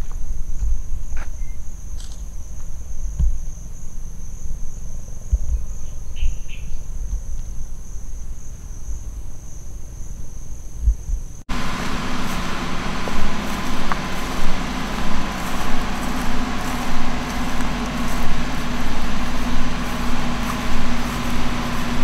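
A steady high-pitched insect buzz over low wind rumble, with a few soft thumps. About halfway through it cuts to a louder, steady engine-like hum that pulses in loudness.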